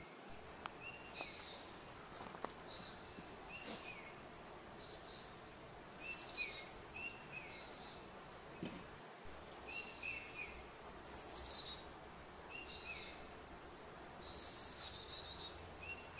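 Birds singing: short chirping phrases repeating every second or two, three of them ending in a quick run of rapid notes, over a faint steady background hiss.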